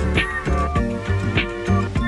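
Upbeat background music with a steady bass line and a light beat, about two and a half beats a second.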